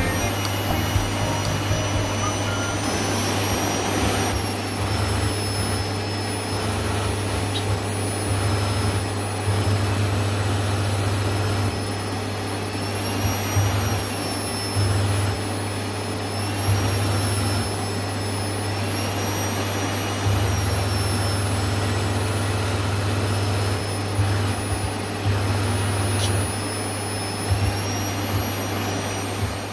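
Panasonic MC-PA100G paper-bag canister vacuum cleaner running, a steady rush of air with a high motor whine that drifts slightly in pitch.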